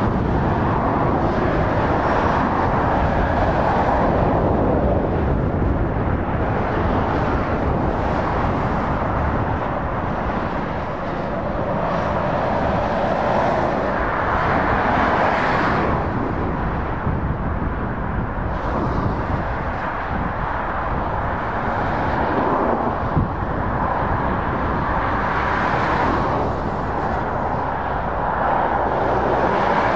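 Motorway traffic: tyre noise and engines of lorries and cars driving past, the noise swelling several times as vehicles go by.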